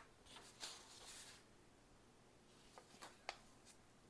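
Faint rustle of paper pages being handled and laid together, with a few soft taps about three seconds in.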